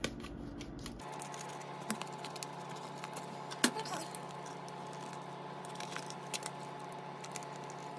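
Plastic package of smoked pulled pork being opened by hand: light scattered clicks and rustling, with one sharper click about halfway through, over a faint steady hum.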